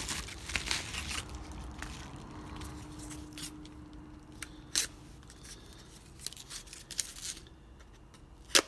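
Scissors cutting open a kraft paper padded mailer: crinkling paper at first, then scattered snips and clicks, with one sharp click just before the end.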